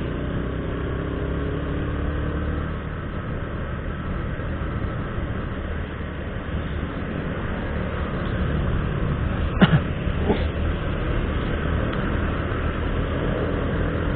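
Motorcycle engine running at riding speed, with steady wind and road noise on a handlebar-mounted action camera's microphone. A sharp knock comes about nine and a half seconds in, with a fainter one just under a second later.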